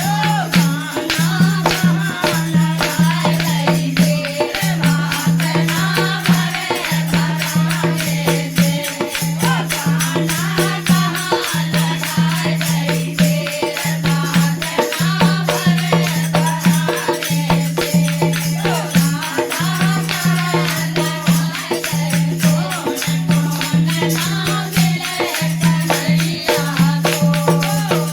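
Krishna bhajan music: fast jingling percussion over a steady low drone, with a wavering melodic line.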